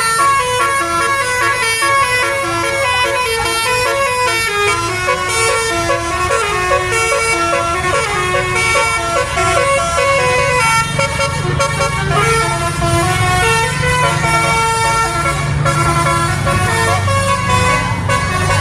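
Bus telolet horn, a set of multi-tone air horns playing a stepping melody note after note, over a steady low hum.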